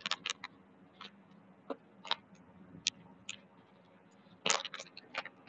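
Scattered faint clicks and small taps, about a dozen, with a denser cluster of them near the end.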